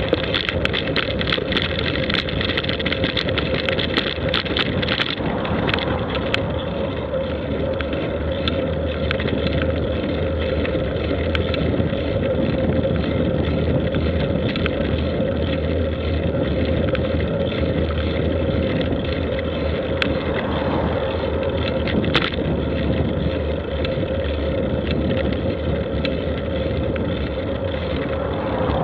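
Steady wind and movement noise on a moving camera, with a constant hum underneath and a run of sharp rattling clicks in the first few seconds.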